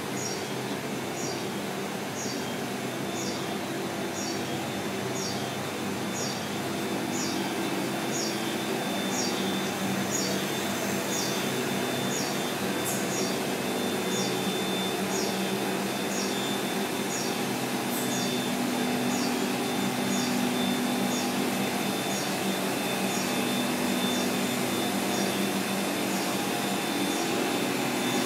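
Steady machine hum and noise of semiconductor fab equipment, with a short high chirp repeating about once a second.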